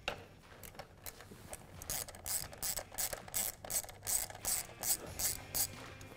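Ratchet wrench with a 10 mm socket on an extension clicking in short even strokes, about three a second, as it backs out the bolt that holds an ignition coil pack down. A few faint ticks come first, and the clicking starts in earnest about two seconds in.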